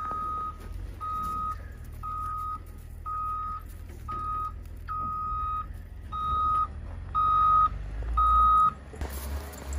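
Reversing alarm of a Caterpillar wheel loader beeping as the loader backs up: a single steady tone about once a second, nine beeps in all, over a low rumble. The beeping stops near the end.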